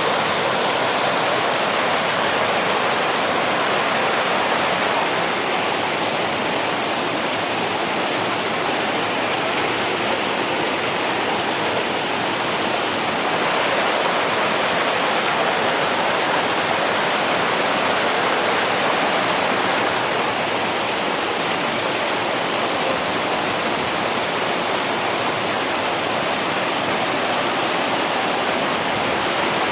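Waterfall pouring, a loud steady rush of falling water that holds even throughout.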